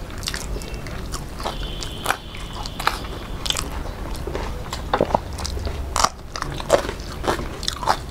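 Close-miked eating sounds: sharp crunchy bites and chewing of fried food, with irregular crunches throughout.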